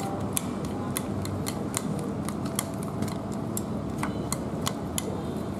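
Chopsticks and a metal spoon clicking and tapping irregularly against a ceramic bowl while stirring a wet herb mixture, over a steady low hum.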